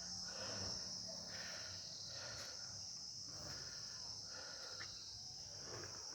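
Insect chorus: a steady, high-pitched trill that does not let up.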